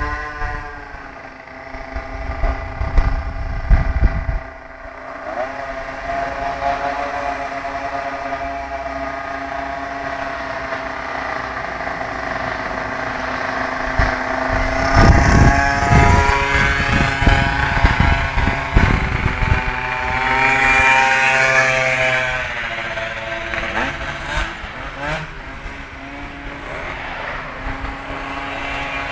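Two-stroke 50cc scooter engines, a Piaggio Zip SP and a scooter with a Minarelli rotary-valve engine, revving hard under full-throttle acceleration, the pitch climbing steadily as they approach and loudest about halfway through before fading. Wind buffets the microphone a few seconds in and again in the middle.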